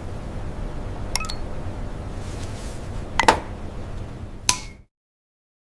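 Steady low hum of factory machinery with three sharp clinks, like containers knocking together, each ringing briefly. The sound cuts off abruptly near the end.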